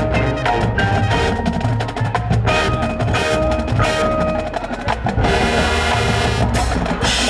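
Marching band playing live, heavy on percussion: drumline strokes and rolls with front-ensemble mallet keyboards and bells ringing over held pitched notes.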